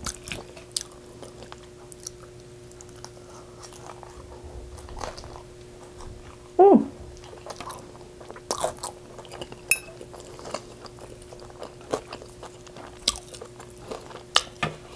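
Close-up chewing of a mouthful of carne asada fries: many small wet mouth clicks and smacks. About six and a half seconds in comes one short hummed voice sound, the loudest thing heard, over a faint steady background hum.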